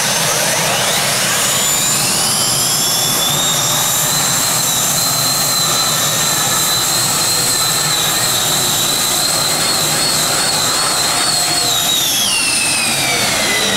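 Gas turbines of a multi-turbine pulling tractor spooling up to a high whine over the first few seconds and holding it steady under full load during the pull. The pitch wavers slightly, then falls away near the end.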